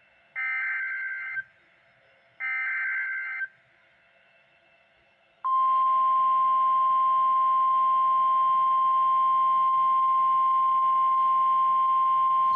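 NOAA Weather Radio Emergency Alert System signal: the last two of the three one-second bursts of buzzy SAME header data, a second apart, then a pause of about two seconds. About five and a half seconds in, the long, steady single-pitch warning alert tone starts, the tone that announces a new warning (here a severe thunderstorm warning).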